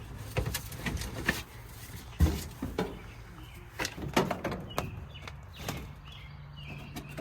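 Irregular knocks and clicks of hard objects being handled and set down, the loudest knock about two seconds in and a cluster around four seconds. Faint chirps, like a bird, near the end.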